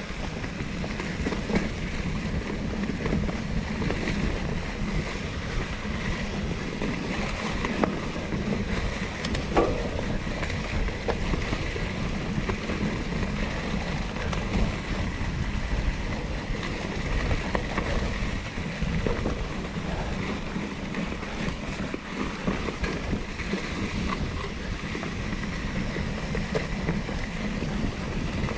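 Wind rushing over the microphone and knobby plus-size tyres rolling on a dirt trail as a Norco Torrent plus hardtail mountain bike is ridden, with a few knocks and rattles from the bike over bumps.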